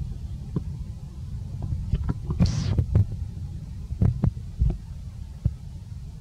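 Outdoor ambience: a low, uneven rumble of wind on the microphone, with scattered soft knocks and one brief hiss about two and a half seconds in.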